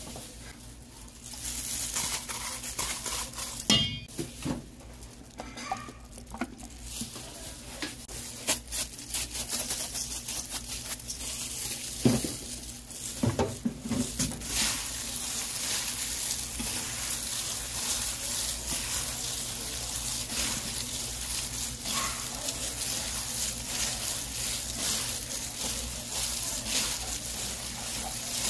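Gloved hands mixing cooked rice with crumbled seaweed and chopped vegetables in a stainless steel bowl: crackly rustling and squishing, with a few sharp knocks against the bowl in the first half. A steady sizzling hiss comes in about halfway through.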